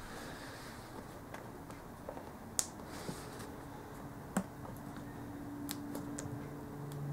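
Hands working a rubber intake boot onto a plastic motorcycle airbox: scattered clicks and taps of plastic and rubber, with two sharper clicks near the middle.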